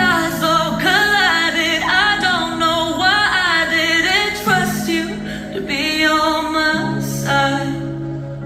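Singing over a backing of held chords that change about every two seconds; the voice bends and wavers, and the music fades near the end.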